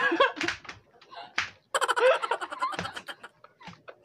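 People laughing and giggling in short bursts, with a longer run of quick, pulsing laughter near the middle.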